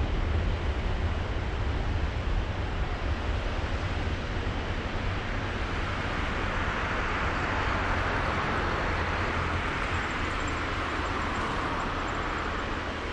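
Twin jet engines of a Boeing 767-300 at takeoff power during the takeoff roll: a steady deep rumble with a rushing hiss that grows stronger about halfway through, easing a little near the end as the airliner pulls away.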